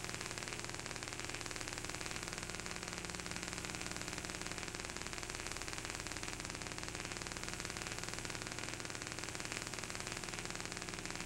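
Steady hiss with a low electrical hum underneath, unchanging throughout: background noise of the recording with no other sound on it.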